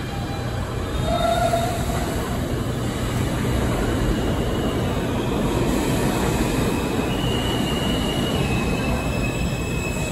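New York City subway train running through an underground station: a steady, loud rumble of wheels on rail, with a few brief high-pitched wheel squeals.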